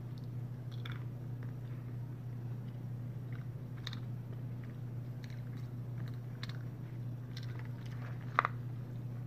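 Close-miked chewing and crunching of food, with scattered small crackles and one sharper crunch near the end, over a steady low electrical hum.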